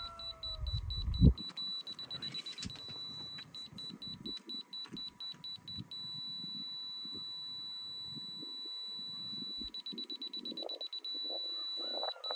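Rotary laser level receiver beeping: rapid short beeps, then a steady tone for several seconds (the on-grade signal), broken by a burst of very fast beeps, with beeping again near the end. A loud thump about a second in.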